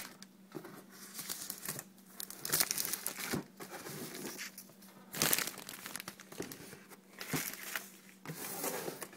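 Clear plastic wrapping being crinkled and pulled off a cardboard product box, in irregular crackling bursts, loudest about two and a half and five seconds in.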